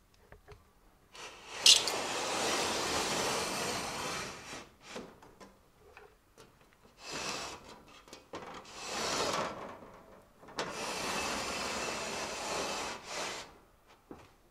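Glass-paned sliding doors of an old wooden laboratory cabinet being slid along their wooden runners: four long scraping rubs, the first and last lasting about three seconds each, with a sharp click near the start of the first.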